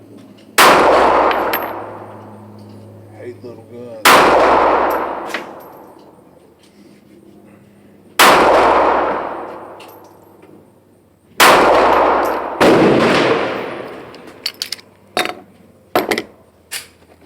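Handgun fired five times in slow succession, each shot with a long echoing tail, the last two closer together. Several short, sharp clicks and clinks follow near the end.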